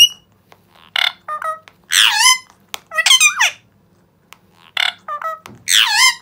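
Indian ringneck parakeets giving a series of short, sharp squeaky calls and chirps, roughly one a second, some sweeping down in pitch and some rising.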